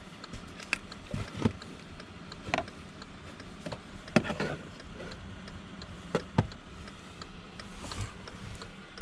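Scattered sharp clicks and light knocks, about eight or nine spread unevenly, over a faint steady hum.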